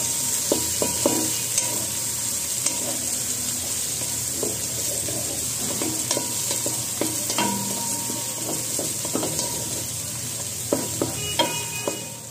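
Sliced onions sizzling as they fry in hot oil, stirred with a wooden spatula that scrapes and knocks against the pan now and then.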